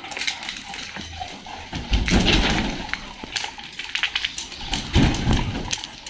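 A pack of dogs milling and trotting on a tiled floor, with many small claw clicks. There are two louder noisy bursts, about two seconds in and again about five seconds in.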